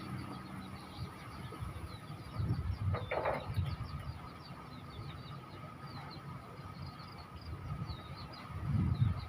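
Small birds chirping in quick, high, repeated notes, over a faint steady high tone, with low rumbles swelling twice, the louder near the end.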